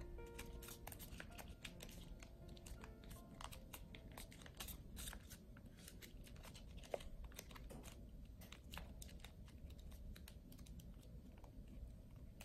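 Faint crinkling and rustling of stiff folded paper, with many small irregular clicks and crackles, as hands wrap and press a folded paper strip around another folded piece; one sharper tick about seven seconds in.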